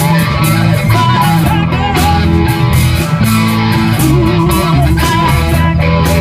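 Live rock band playing loudly: electric guitars, bass guitar and a drum kit keeping a steady beat, with a woman singing through a microphone.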